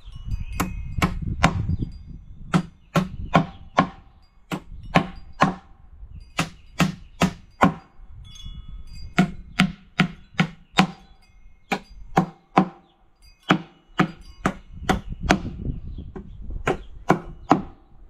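Hammer driving nails into a wooden beehive box: a run of sharp strikes, about two or three a second, in groups of three to five with short pauses between.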